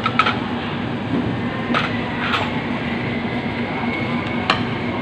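Steady background hum and rumble of restaurant ambience, with about four light clinks as a slotted ladle stirs a steel hot pot on an induction cooker.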